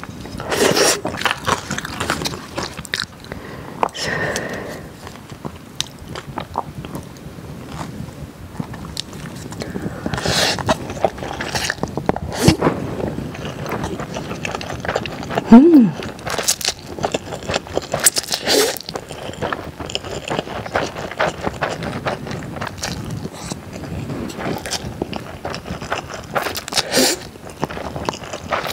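Close-up mouth sounds of a person eating spicy Buldak fire noodles and curry: wet slurping of noodles, chewing and lip smacks in an irregular stream of sharp clicks. About halfway through there is one short sound that rises and falls in pitch, the loudest moment.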